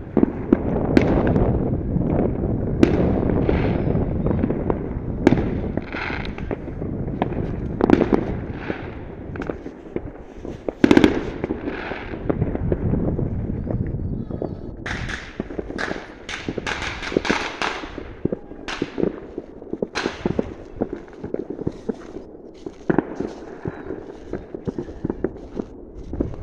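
Fireworks going off across a town: scattered bangs over a low rumble, the loudest bang about eleven seconds in, and a run of quick crackling pops about fifteen to eighteen seconds in.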